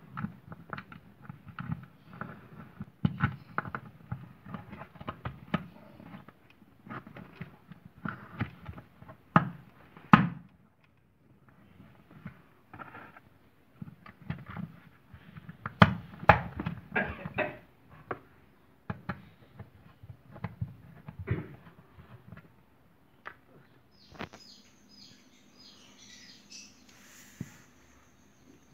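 Irregular clicks, scrapes and cardboard rustling as a plastic bulb holder is screwed by hand onto the wall of a cardboard box, with sharper knocks about ten and sixteen seconds in.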